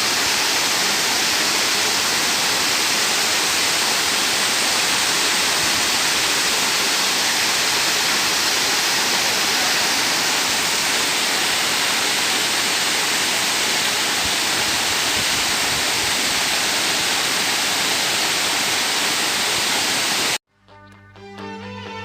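Waterfall: a steady rush of falling water. It cuts off abruptly near the end, and a song with instruments begins.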